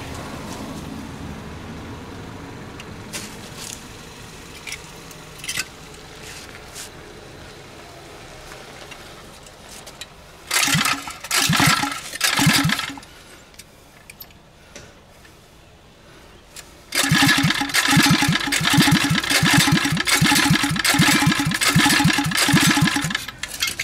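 A 79cc Predator four-stroke single-cylinder engine being pull-started with its recoil starter. There are three short cranking bursts about ten seconds in, then several seconds of rapid chugging pulses near the end. It does not settle into running, and the owner then decides it needs priming.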